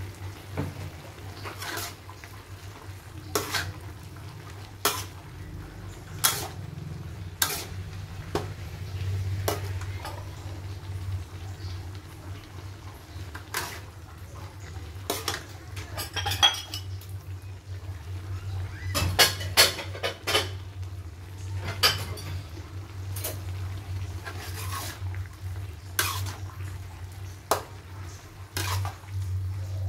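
Metal spatula clacking and scraping against a metal wok as vegetables are stir-fried, in irregular strokes that come thick and fast about two-thirds of the way through. A steady low hum runs underneath.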